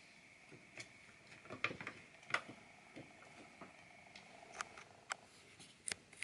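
Scattered light clicks and taps, about eight in all at uneven intervals, as screws and casing parts are handled during reassembly.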